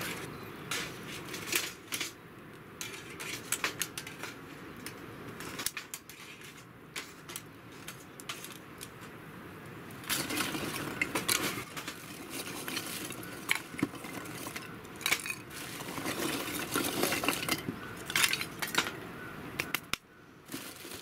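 Lumps of charcoal being set onto a burning wood fire in a Picogrill 398 stainless-steel fire pit, clinking and knocking against each other and the thin steel fire bowl. There are many small clinks throughout, with busier spells around halfway and near the end.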